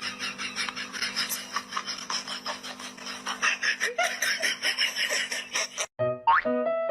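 Fast, even scratching or rasping strokes, several a second, over a steady low hum. They cut off near the end and a short bright music melody starts.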